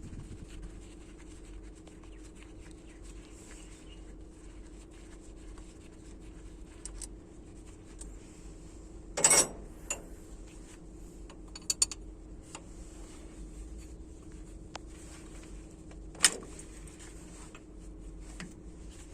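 Steady low hum with a loud clunk about nine seconds in, a few light clicks a couple of seconds later, and another sharp knock near the end.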